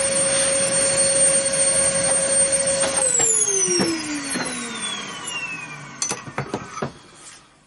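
A high-speed electric motor runs with a steady whine, then is switched off about three seconds in and spins down, its pitch falling over the next few seconds. A few sharp clicks or knocks come near the end.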